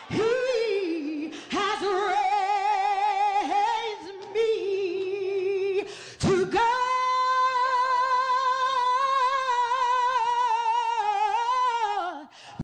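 A woman singing a cappella with wide vibrato in a few short phrases, then holding one long note from about six seconds in until shortly before the end.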